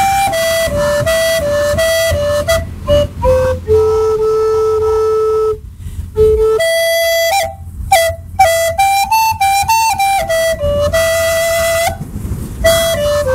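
A solo flute playing a slow melody, stepping between notes. It holds a long low note about four seconds in, then plays quick fluttering notes about eight to ten seconds in.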